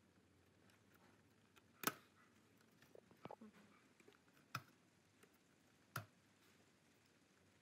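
Three sharp clicks with a few softer ticks between the first two, from needle-nose pliers gripping and working wires inside an opened stereo's chassis.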